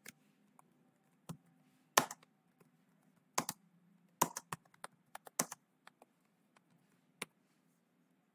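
Typing on a computer keyboard: irregular keystrokes, some in quick clusters, stopping about seven seconds in.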